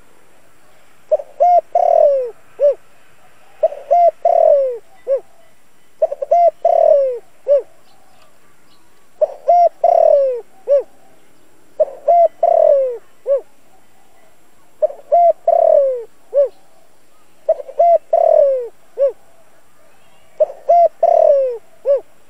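Spotted dove cooing: eight repeated phrases, each a couple of short coos, a longer coo falling in pitch and a short closing coo, with a pause of about a second between phrases.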